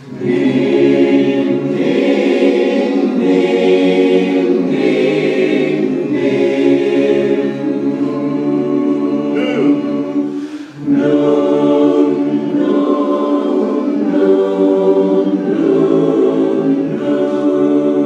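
A cappella barbershop chorus singing a passage in held chords that change every second or two, with a brief break for breath about eleven seconds in.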